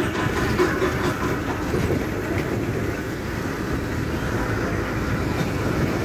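Bus running along a road at speed, heard from inside the cabin: a steady engine and road rumble with body rattle.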